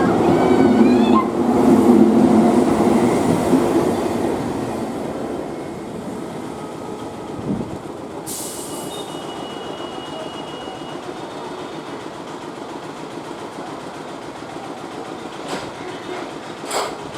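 Medha electric multiple unit train running fast on the track, loudest in the first few seconds with a brief high wheel squeal, then its rumble fading as it moves away. About eight seconds in a sharp high hiss with a thin steady tone comes in for a few seconds.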